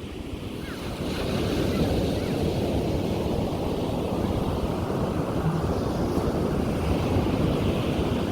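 Ocean surf washing onto a beach, a dense steady rush that swells up again about a second in, with wind rumbling on the microphone.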